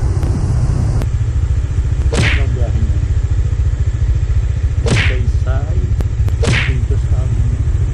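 Kawasaki Dominar 400's single-cylinder engine idling with a steady, low, rapidly pulsing exhaust note. Three short swishes, each falling quickly in pitch, come about two, five and six and a half seconds in.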